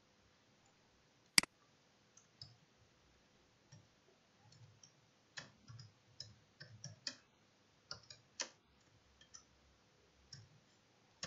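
Computer keyboard keys clicking faintly in short, uneven runs as text is typed. One sharper, louder click comes about a second and a half in.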